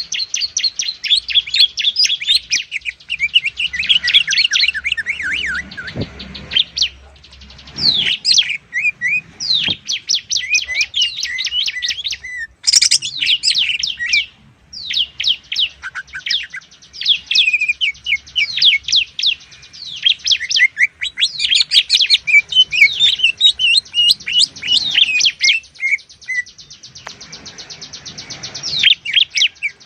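Cucak ijo (green leafbird) and ciblek (bar-winged prinia) singing fast, unbroken chirping song, many quick high notes a second, with short breaks and a softer run of rapid even ticks near the end.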